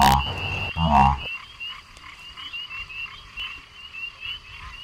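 Frogs croaking: two loud, deep croaks in the first second or so, over a steady background chorus of higher calls repeating several times a second.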